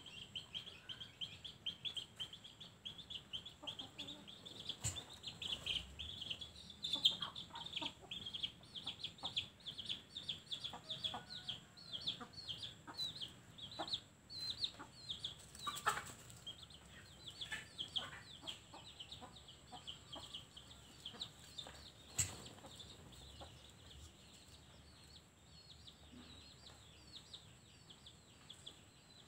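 Rapid, high-pitched bird chirps, many a second, dense at first and thinning out after about twenty seconds, with an occasional sharp click.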